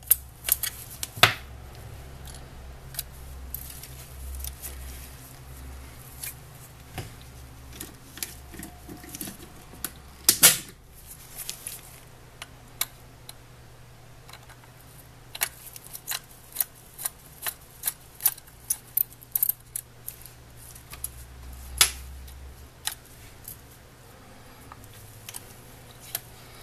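Irregular small clicks and taps of a small screwdriver against the plastic couplers and frame of an HO scale model locomotive, a few of them louder knocks, over a faint low steady hum.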